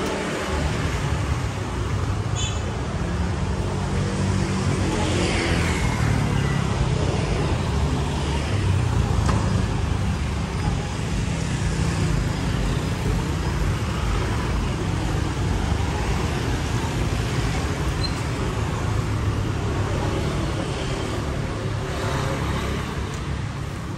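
Street traffic: car and motor scooter engines running and passing in a continuous low rumble, with one vehicle going by close about five seconds in.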